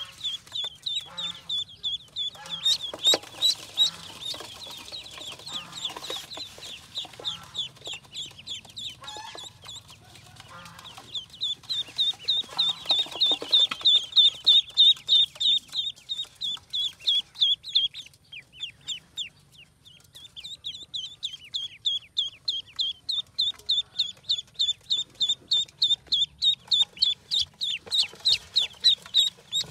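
Ducklings peeping: rapid, high, short peeps, each falling in pitch, several a second. They come in loud runs with a brief lull about two-thirds of the way through.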